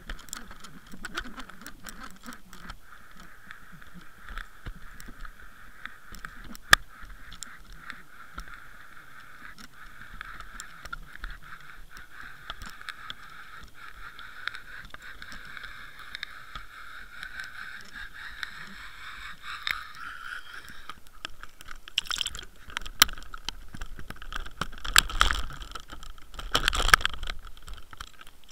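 Steady underwater whine heard through the camera housing of a fishing rig as it is hauled up, rising slightly in pitch before it cuts off about two-thirds of the way in. Then knocks, scrapes and splashing as the rig and a hooked cod come up to the surface.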